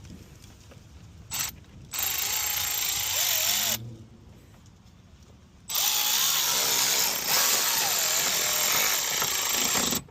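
Cordless drill driving screws to fasten a car side skirt: a short blip, then two runs of the motor, the second about twice as long as the first, its pitch wavering as the screw takes load.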